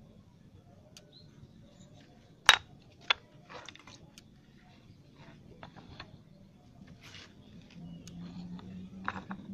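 Sharp wooden knocks, the loudest about two and a half seconds in and a second half a second later, then lighter clicks and scrapes as a portable circular saw and wooden blocks are set down and shifted on a wooden plank. A low steady hum comes in near the end.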